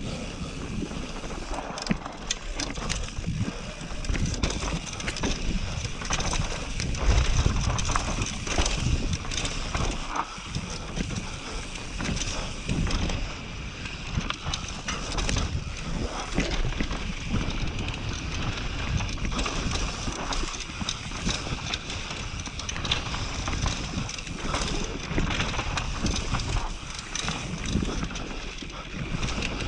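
Mountain bike descending a dry dirt trail at speed: tyres rolling over dirt and stones, the bike rattling and knocking over bumps, heaviest about seven seconds in, with wind rushing over the camera microphone.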